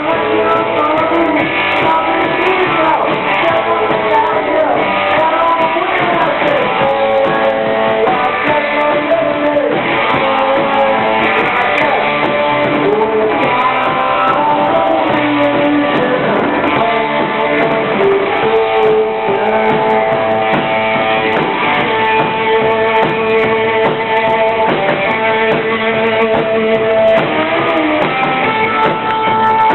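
A live rock band playing loudly, with electric guitar to the fore and notes bending and wavering in pitch.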